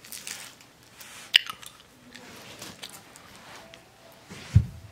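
Candy wrappers crinkling as they are handled, with a sharp click about a second and a half in and a single dull thump near the end.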